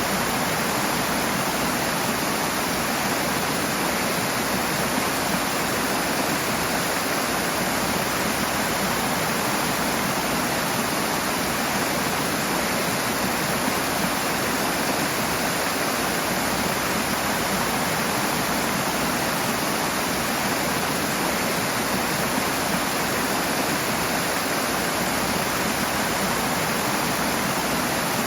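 Rushing water, a steady, even rush with no let-up.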